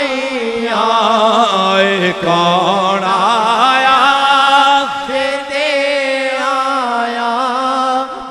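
A man's voice singing a naat unaccompanied through a microphone and sound system, drawing out long, ornamented notes whose pitch wavers and glides continuously.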